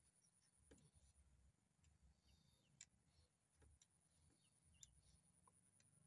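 Near silence, with a few faint scattered ticks and short high chirps over a faint steady high whine.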